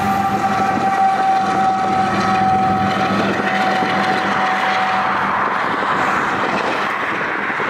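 GE ES44AC diesel locomotive pushing hard on the rear of a container train, passing and moving away, its engine working under load. A steady high whine drifts slightly lower in pitch and fades out about five seconds in, and a rushing noise builds near the end.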